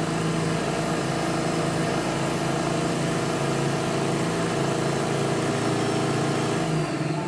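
Monsieur Cuisine Connect food processor's motor running at speed 8, its blade blending apple chunks in the steel jug, steady and loud; near the end the timed cycle finishes and the motor begins to wind down.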